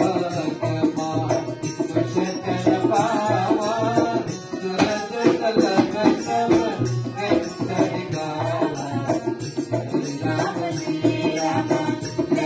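Devotional Hindu bhajan music: dholak drum, dhantal and jhaal cymbals keep a steady, jingling beat under a pitched melody line.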